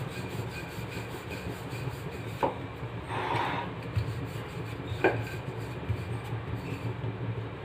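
Wooden rolling pin rolling out a stuffed potato paratha on a stone rolling board: a steady rubbing sound, with two sharp knocks about two and a half and five seconds in.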